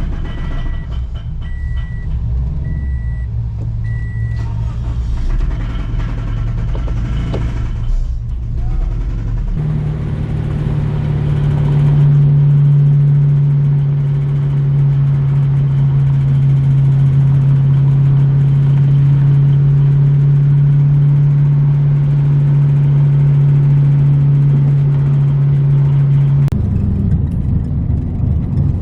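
Scion FR-S's flat-four engine, which has a rod knock, running just after being restarted, with a short high chime beeping about six times in the first few seconds. From about ten seconds in, the engine drones at a steady, unchanging pitch, as when cruising at constant speed, until an abrupt change near the end.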